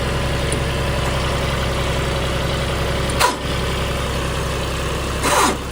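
Tractor engine idling steadily, with two short sharp noises cutting across it, about three seconds in and again near the end.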